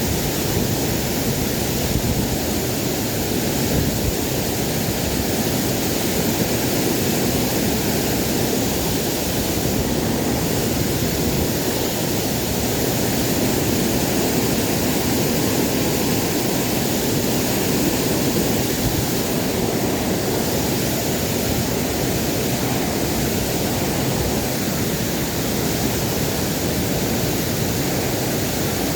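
Waterfall's water rushing steadily, an even, unbroken wash of sound.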